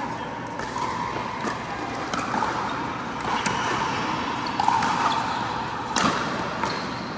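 Pickleball play on an indoor court: a few sharp pops of paddles striking the plastic ball, spaced a second or two apart, the loudest about six seconds in.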